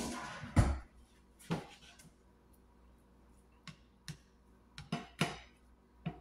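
A plastic spatula knocking and scraping against a ceramic non-stick frying pan as raw chicken pieces are pushed around: about nine short, sharp knocks at uneven intervals, the loudest in the first second. The pan is still heating up, so there is no sizzle yet.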